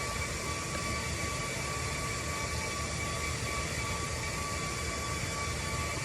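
A steady low mechanical drone with two thin, high, steady whining tones over it.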